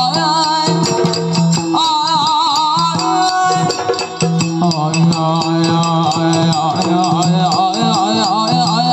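Yakshagana bhagavatike: a sung melody with wavering ornaments, pausing briefly and picking up again, over a steady drone, with drum strokes and small hand cymbals keeping an even beat.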